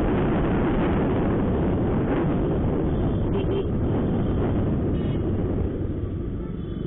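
Honda SP125 single-cylinder motorcycle ridden at speed in traffic: a dense rush of wind and engine noise that gets quieter about five to six seconds in as the bike slows down.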